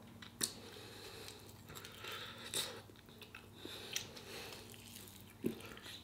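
A person biting and chewing meat off a barbecued pork short rib, faint, with a few sharp wet mouth clicks scattered through.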